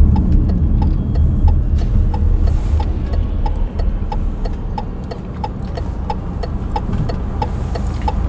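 Car turn-signal indicator ticking evenly, a little over two clicks a second, over the low rumble of the car driving, heard inside the cabin.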